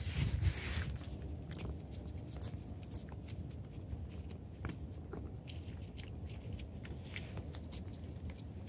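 Cat licking paste from a squeeze-tube cat treat held in a hand: soft, scattered small wet clicks of the tongue and mouth, over a low rumble of handling noise.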